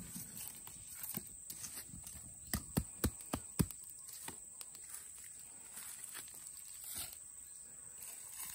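Charred wooden logs knocking against each other as they are dragged off a smouldering fire: a quick run of about five sharp knocks about two and a half seconds in, with lighter taps and scrapes around them.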